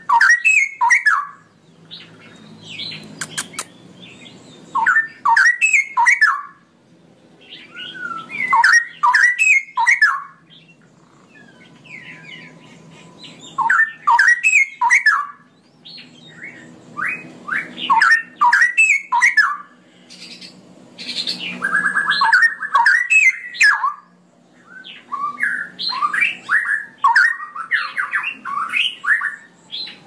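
Straw-headed bulbul (cucak rowo) singing its loud, fluty rolling song in bursts of quick warbled notes. There are about seven phrases, each one to two seconds long, with short pauses between them.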